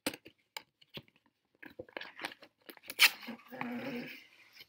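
Cardboard figure box being opened by hand: small taps and rustles, a sharp snap about three seconds in, then the inner cardboard sliding out with a drawn-out rubbing scrape that has a faint pitch to it.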